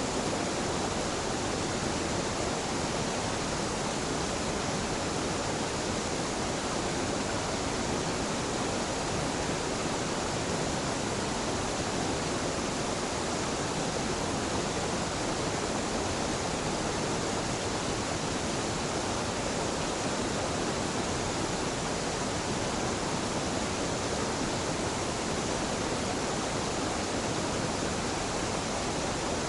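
Small mountain waterfall pouring and splashing in a steady, unbroken rush of water.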